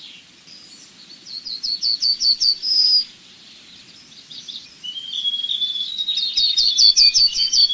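Yellowhammer singing: a rapid run of about six short, high notes ending in a longer held note, a little over a second in. From about five seconds in, another song with a quick run of notes over a lower, drawn-out note runs through the end.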